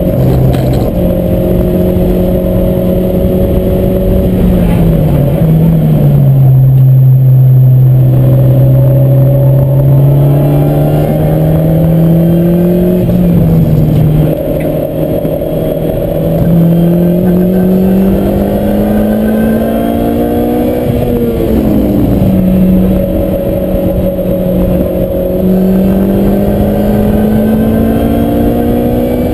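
Lotus Exige's four-cylinder engine, heard from inside the cockpit, running hard on track with no break. Its pitch falls about five seconds in as the car slows for a corner, then climbs slowly under acceleration. It drops again with a gear change about two-thirds of the way through, then rises once more.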